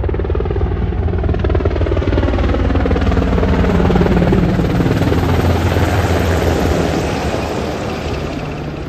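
Marine Corps VH-60N Nighthawk helicopter passing low overhead: rapid rotor chop and engine whine grow louder to a peak about four seconds in. The sound then fades, its pitch falling as it moves away.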